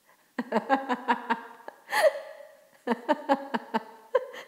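A woman's fit of laughter: two runs of quick pulses with a sharp, gasping in-breath between them about two seconds in.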